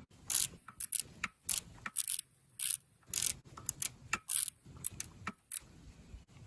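Metal parts and hand tools clinking and clattering: an irregular run of about fifteen sharp metallic clinks over five seconds.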